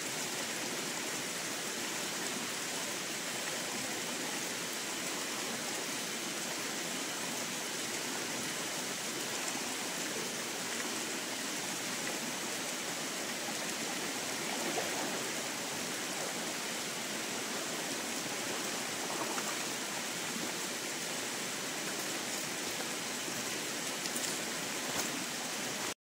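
Shallow forest stream flowing steadily, with a thin waterfall splashing off a rock into it.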